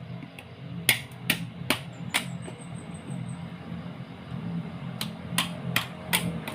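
Sharp knocks in two runs of four, evenly spaced about half a second apart, with a pause between the runs, over a low steady hum.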